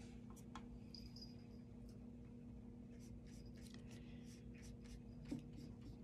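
Faint, soft scratching of a watercolour brush stroking across paper, a few light strokes scattered through, over a steady low hum.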